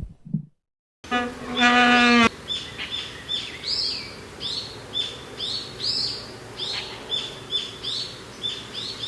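The end of a stomach growl fades out, and a moment of silence follows. Then comes a held tone with overtones for about a second, followed by birds chirping in short, high, rising calls about twice a second.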